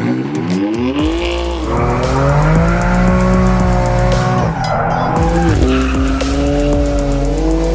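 Car engine revving hard while drifting, its pitch climbing steeply in the first second and a half and then held high, with tyres squealing. The revs drop briefly about five seconds in and climb again.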